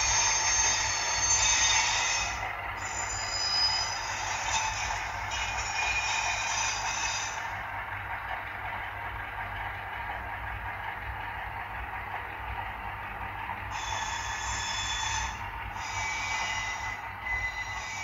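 Iowa Scaled Engineering Squealer sound module playing recorded railway wheel squeal as an HO scale freight train rounds a curve, with a steady rushing noise beneath. The high squealing runs for the first seven seconds or so, stops, and returns about fourteen seconds in for a few seconds.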